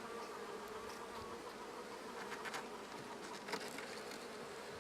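Honey bees buzzing steadily at an open hive, with a few faint clicks about halfway through.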